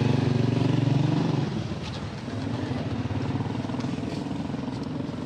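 An engine running steadily, loud for about the first second and a half, then quieter for the rest.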